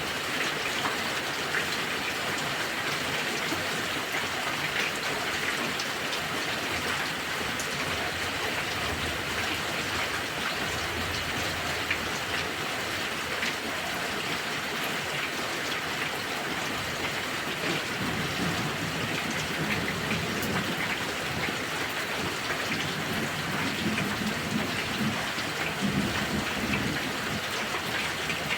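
Heavy rain falling steadily, with many small drop ticks. A low rumble of thunder swells in the second half.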